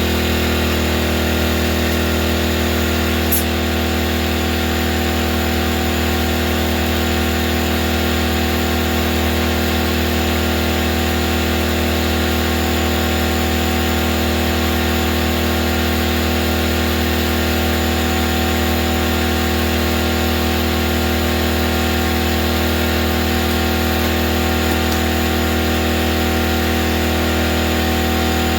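Air compressor running steadily while inflating a tire to seat its bead, a constant motor-and-pump hum. A single short click about three seconds in.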